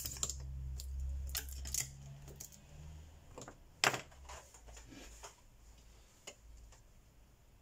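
Scattered light clicks and taps as a smartphone LCD screen panel is handled and laid down on a paper-covered work surface, the sharpest tap about four seconds in. A low hum underlies the first three seconds.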